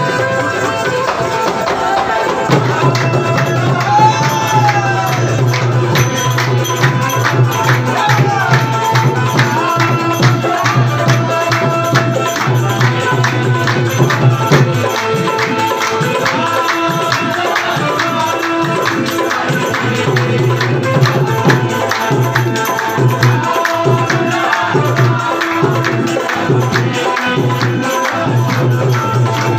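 Devotional qawwali performed live by a small group: a harmonium holds steady chords under a singing voice, with tabla and hand-clapping keeping a steady rhythm.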